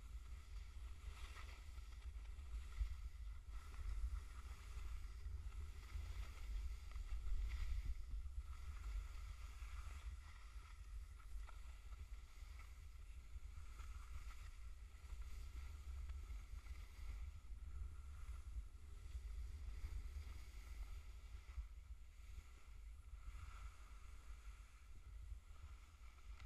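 Low wind buffeting on the camera microphone, with skis swishing and scraping over snow, swelling with each turn about every second or two.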